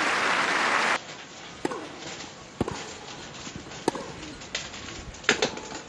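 Crowd applause that cuts off about a second in, then a tennis point being played: sharp pops of racquets striking the ball and the ball bouncing, roughly a second apart.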